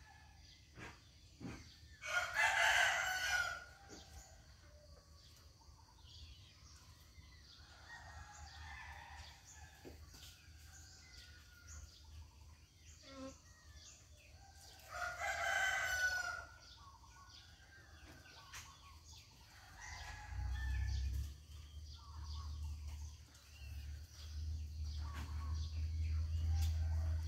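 A fowl gives two loud crowing calls, each about a second and a half long and some thirteen seconds apart, with faint bird chirps between them. A low rumble comes in about two-thirds of the way through.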